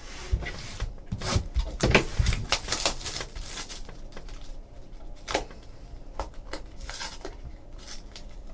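Trading cards and their packaging handled on a table: a run of rustles, taps and clicks, busiest and loudest about one to three seconds in, then scattered single clicks.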